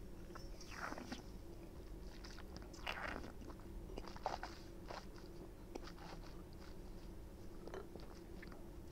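A taster sipping red wine and drawing air through it in the mouth, with two soft slurps about one and three seconds in, then quiet wet mouth sounds and a few small clicks as the wine is worked around the palate.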